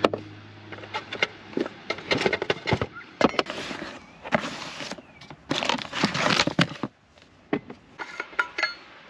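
Irregular rustling, clicks and knocks of things being handled and moved about, in short bursts with a brief quiet spell near the end.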